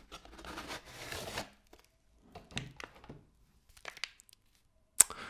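A frozen cake's packaging being opened by hand: a cardboard box and its plastic film rustling and tearing for about a second and a half, then further bursts of handling. Near the end comes one sharp click, the loudest sound.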